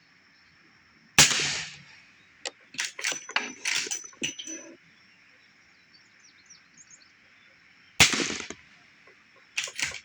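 Two suppressed rifle shots from a Smith & Wesson lever-action firing subsonic .44 Special lead-bullet loads through a suppressor, about seven seconds apart. Each sharp crack is followed a second or so later by a run of metallic clicks and clacks as the lever is worked to chamber the next round.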